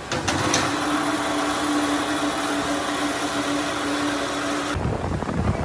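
Electric overhead chain hoist motor running steadily as it lowers an auto-rickshaw body onto its chassis. It cuts off abruptly near the end, leaving low rumbling and a few knocks.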